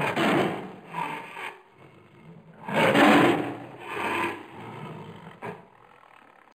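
White lion cubs growling: a series of rough, noisy bursts with short pauses, the loudest about three seconds in.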